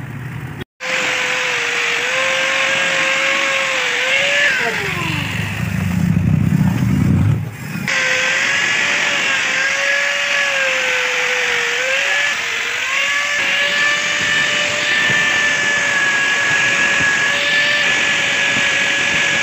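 Handheld angle grinder with an orange abrasive disc whining at speed as it scrubs old windshield adhesive off a car's bare window frame. About four seconds in, its pitch falls sharply for a couple of seconds and a low rumble comes in, before the steady whine picks up again.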